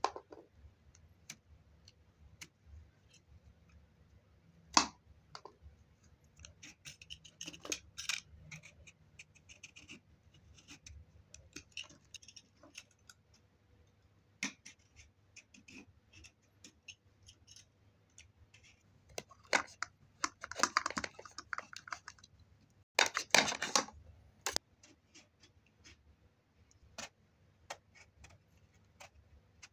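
Vegetable peeler scraping the skin off an eggplant in short strokes, with scattered clicks and clinks of peel and tools against a metal tray; a denser run of scraping comes about 20 to 24 seconds in.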